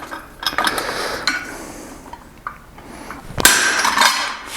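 Hand hammer blows on hot steel in a blacksmith's guillotine tool. There are a few lighter strikes in the first second, then one hard blow about three and a half seconds in that rings on briefly.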